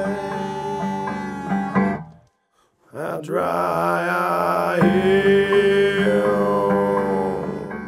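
Background music: a song with guitar and singing, dropping out to near silence for under a second about two seconds in.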